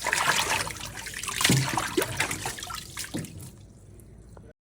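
Water running from a kitchen tap into a sink as produce is rinsed under it, with a few knocks. It fades near the end, then the sound cuts off suddenly.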